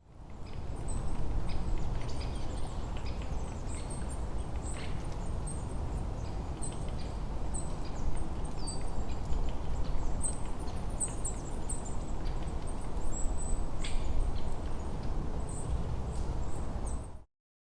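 Forest ambience: many short, high bird chirps over a steady low rushing noise. It fades in at the start and cuts off suddenly near the end.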